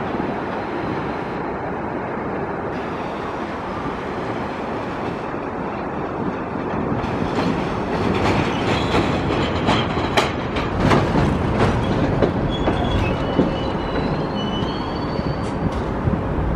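Subway train pulling into an elevated station: a steady rumble of the cars, then from about halfway through a run of sharp clicks and knocks as the wheels pass over rail joints and switches, with a few brief high wheel squeals as it slows.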